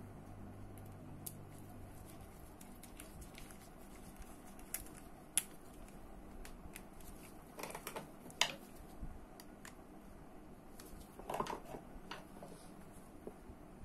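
Small metal clicks and ticks of a screwdriver turning tiny screws into the side plate of a Daiwa Seiko Coronet 5 direct-drive reel, with the reel handled in gloved hands. Sharper clicks and knocks come in small clusters a few times, the loudest past the middle and again about three quarters through.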